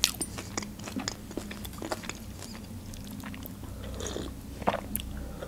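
Close-miked chewing and wet mouth clicks of a person eating a fried pastry, with a sip from a mug about four seconds in.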